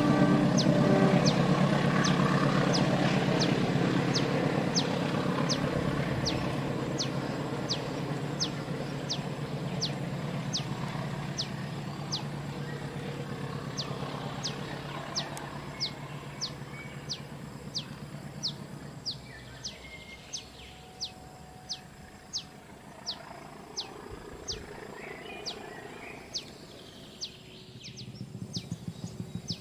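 Diesel-hauled passenger train passing at a distance, its rumble loud at first and fading away over about twenty seconds. Throughout, a bird repeats a short, high, falling whistle about once a second.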